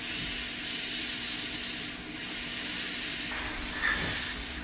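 Heat gun blowing hot air, a steady hiss, shrinking heat-shrink tubing down over a soldered wire joint. The hiss thins out about three seconds in.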